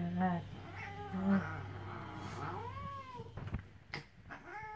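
Domestic cat yowling and meowing in drawn-out calls that rise and fall in pitch, during rough play with a dog. Two short knocks come near the end.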